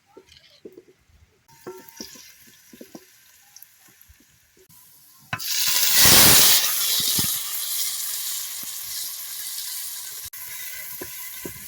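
Light knocks and clinks of cooking, then, about five seconds in, a loud sizzle starts suddenly in a hot pan and carries on, slowly fading.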